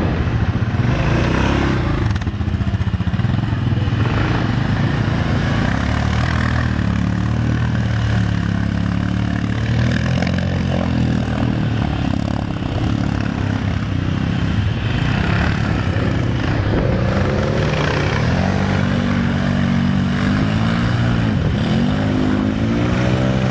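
Quad ATV engine running and revving as it drives through a shallow river, its pitch rising and falling with the throttle, over a steady rush of water splashing.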